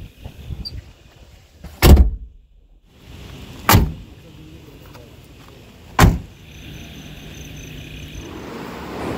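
Three loud thumps of vehicle doors being shut, the second and third about two seconds apart, then a vehicle engine running steadily from about six seconds in.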